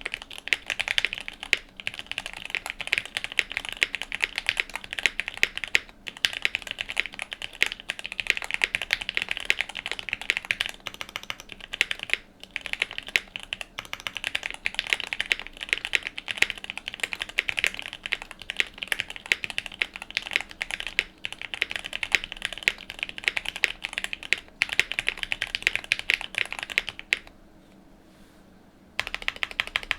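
Continuous fast typing on a QK75N mechanical keyboard with a POM plate, full foam, lubed Gateron Blue Bubblegum switches and GMK keycaps: a dense run of keystroke clacks. There are brief pauses, and a stop of about two seconds near the end before typing starts again.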